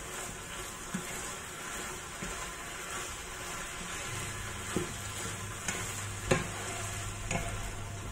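Diced chicken sizzling in a frying pan as it is stirred with a wooden spatula, the spatula knocking against the pan a few times, loudest about six seconds in.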